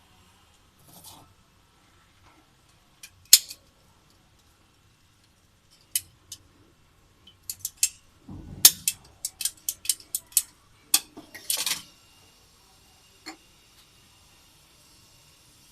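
Sharp clicks and clinks of small hard objects being handled. There is one loud click about three seconds in, then a low thud followed by a quick run of about ten clinks in the last part of the burst activity, around eight to twelve seconds in.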